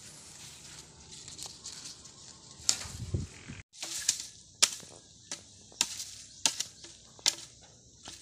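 Cut bamboo tubes knocking and clacking as they are set upright one by one in a row: about seven sharp, hollow wooden knocks in the second half, roughly one every two-thirds of a second. Before them there is faint outdoor background with a brief low rumble.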